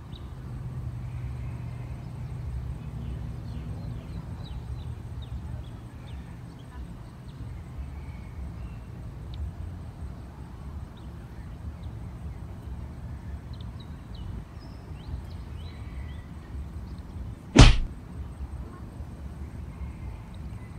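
Outdoor waterside ambience: a steady low rumble with faint high chirps, broken near the end by one loud, sharp snap.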